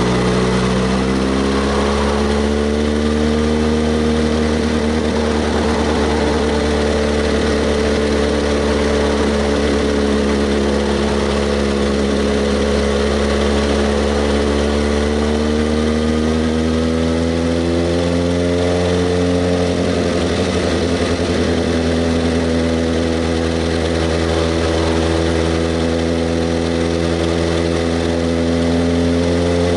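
Kawasaki ZX-6R 636's inline-four engine running under way, its pitch slowly rising and falling with the throttle. It climbs in the first few seconds, dips and rises again to about 18 seconds in, drops at about 20 seconds, and climbs once more near the end.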